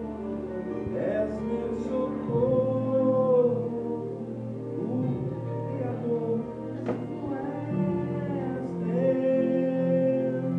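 Gospel music sung by a vocal group, several voices in harmony holding long notes and gliding between them. There is a brief click about seven seconds in.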